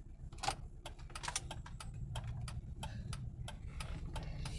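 Mercedes turn-signal indicator ticking in a steady rhythm inside the cabin, over the faint low hum of the idling engine.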